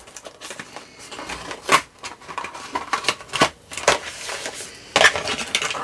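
Thin printed cardboard gift box being opened by hand: its flaps rustle and tap in a scatter of short, irregular clicks.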